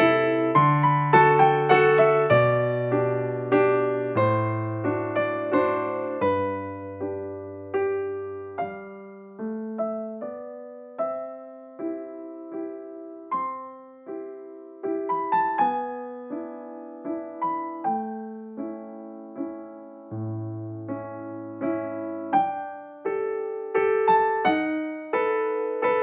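Background piano music: gentle struck notes in chords and melody, each note dying away.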